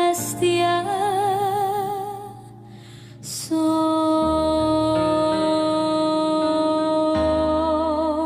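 Slow, tender ballad music: long held melody notes with vibrato over soft accompaniment. It fades down about two seconds in and comes back suddenly about a second later.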